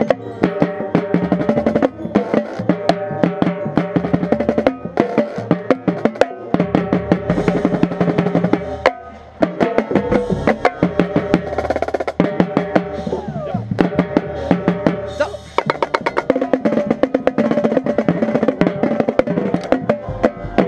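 Marching tenor drums (a five-drum set of quints) played close up in fast stroke patterns and rolls, over marching band music.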